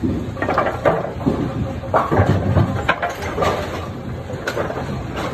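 Brunswick A2 bowling pinsetters running: a steady low hum of the machinery with irregular metallic knocks and clatter.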